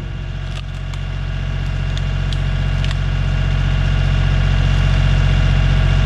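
Kioti 3510 tractor's diesel engine running steadily at raised revs, about 1700 rpm, to power a Split-Fire two-way log splitter. Over it come several sharp cracks and splintering as the wedge splits firewood rounds.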